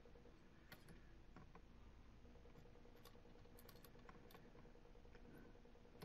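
Near silence with a few faint small clicks and taps from desoldering wires off a circuit board with a soldering iron and pulling them away. A faint steady hum comes in about two seconds in.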